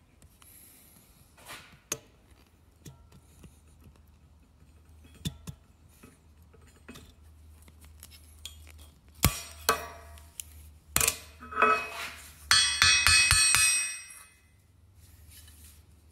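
Faint clicks of snap-ring pliers working a snap ring out of a Metalcloak Duroflex joint. Later, sharp metal knocks about 9 and 11 seconds in, then a loud ringing metallic clatter of steel parts against a steel bench top lasting a second or two.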